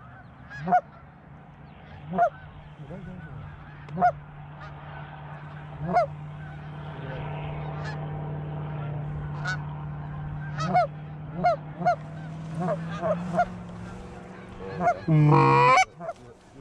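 Goose honks: single short honks about every two seconds at first, then quicker runs of honks, with one loud, drawn-out honk near the end. A steady low hum sits under the middle part.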